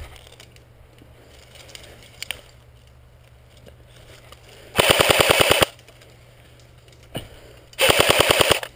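Airsoft gun firing two short full-auto bursts, each a rapid rattle of about fifteen shots a second lasting under a second, about three seconds apart, starting about five seconds in.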